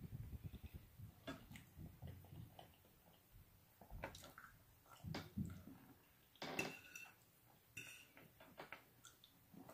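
Quiet eating sounds: chewing and mouth smacks, with scattered sharp clicks such as a fork touching the plate.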